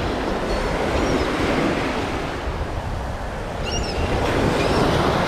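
Surf washing up the beach, with a few short, high-pitched gull calls over it.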